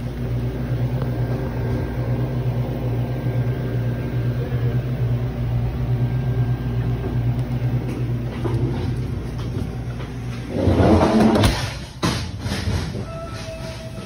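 Walk-in refrigerator's cooling unit running with a steady low electric hum. About ten and a half seconds in a loud noise lasts about a second, and after it the hum is weaker.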